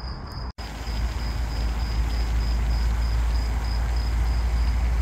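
A cricket chirping in an even, high, pulsing trill, over a loud low steady rumble that sets in after a brief dropout about half a second in.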